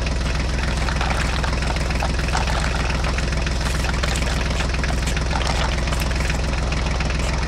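Steady, low engine drone like a tractor idling, with faint ticking over it, as the toy tractor drives along.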